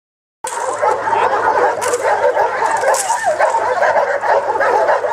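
Dogs barking and yipping without pause, starting about half a second in, with a faint steady hum underneath.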